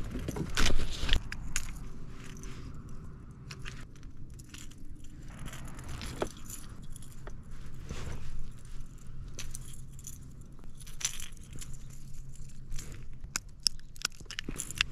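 Irregular small clicks, knocks and rattles of fishing gear being handled aboard a kayak, loudest in a cluster at the start.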